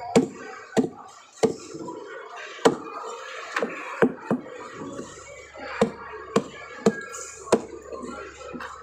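Cleaver chopping through a threadfin fish onto a thick wooden chopping block: about a dozen sharp, unevenly spaced knocks.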